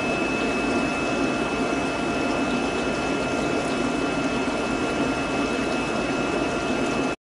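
Steady rush of aquarium pumps and moving water, the running filtration and aeration of a fish room, with a faint steady high whine over it. It cuts off abruptly at the very end.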